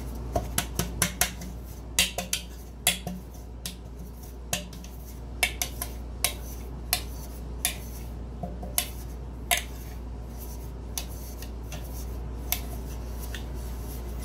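Metal tube cake pan being turned and tapped by hand to spread flour over its oiled inside: a string of irregular sharp metallic knocks and clinks, sometimes several in quick succession.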